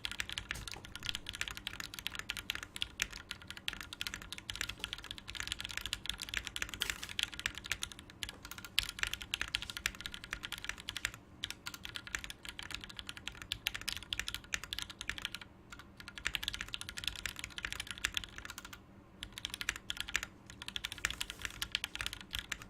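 Custom tenkeyless mechanical keyboard with lubed Gateron Black linear switches and GMK doubleshot ABS keycaps, typed on in a fast, steady run of keystrokes. The typing stops briefly about 15 seconds in and again about 19 seconds in.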